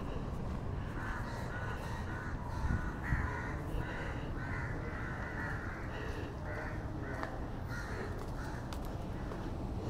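A bird calling over and over in a quick run of short calls, about two to three a second, starting about a second in and stopping near the end, over a steady low rumble.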